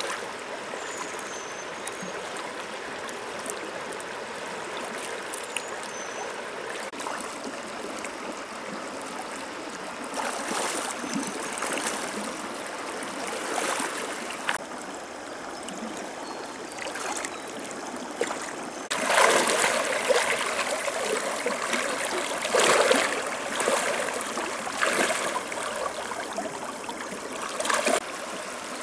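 Shallow river running steadily over rocks, with splashing from wading feet and hands in the water. The splashing comes in irregular surges and is loudest in the second half.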